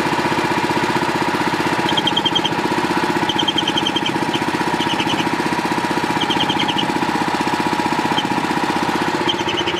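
The Pluk-O-Trak's 13 hp Honda engine running steadily, with a steady squeal over it and short bursts of rapid high chirping every second or two. The owners take the noise for a slipping V-belt.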